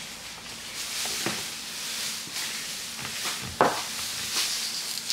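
Kitchen food-preparation sounds: a steady hiss with a few light knocks and one sharp knock about three and a half seconds in.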